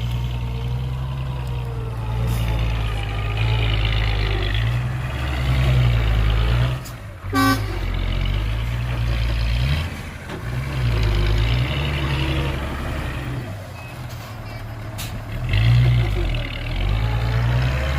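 Heavy diesel earth-moving machinery running: a bulldozer and dump truck engine rumble that rises and falls with load, with a short horn toot about seven seconds in.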